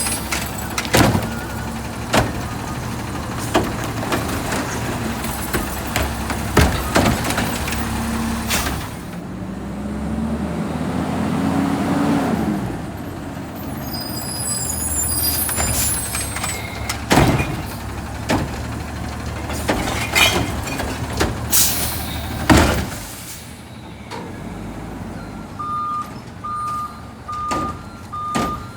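Autocar ACX Xpeditor front-loader garbage truck at work. Its diesel engine runs and revs up about a third of the way in, with repeated sharp bangs and air-brake hisses. Evenly spaced reversing beeps start near the end.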